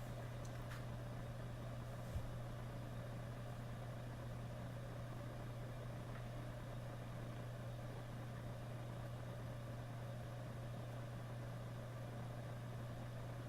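A steady low electrical hum with faint hiss, and one short click about two seconds in.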